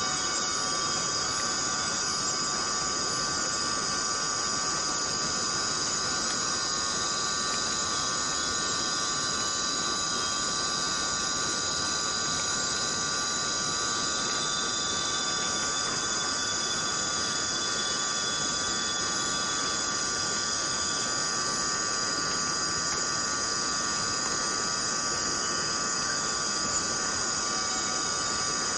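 A chorus of cicadas calling continuously, a steady shrill buzz made of several held pitches, high and mid, that neither rise nor fall.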